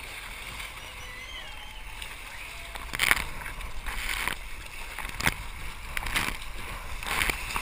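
Sea water sloshing and splashing around a surfski in rough downwind conditions, with wind buffeting the microphone. From about three seconds in, sharp splashes come roughly once a second from paddle strokes and spray hitting the boat.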